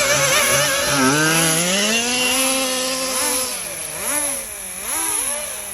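Small nitro RC buggy engine revving, its high pitch climbing and dropping again and again as the throttle is worked.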